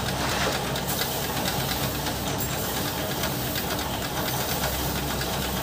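Paddy rice seed rustling and pattering as it is scooped by hand into a small basket measure, over a steady machine-like hum.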